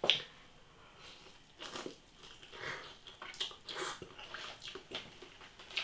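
A person eating instant ramen noodles off a fork: a string of short slurping and chewing sounds.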